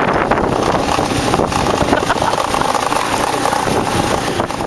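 Motorcycle engine running steadily while riding, with wind rushing over the microphone; the sound fades away near the end.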